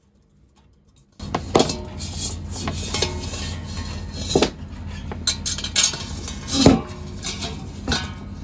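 Clinks, knocks and rubbing from handling a rice cooker's outer shell while a power cable is pushed through a hole drilled in it, over a steady low hum. Quiet for about the first second, then a string of sharp knocks, the loudest about two thirds of the way in.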